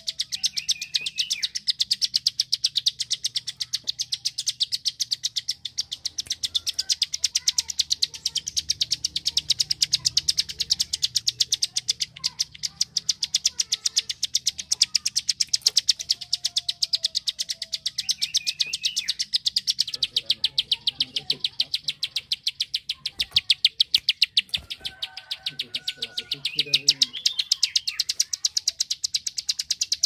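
Plain prinia (prenjak sawah) giving its rapid 'klik' call: a fast, unbroken run of sharp clicking notes, with a short chirp breaking in now and then.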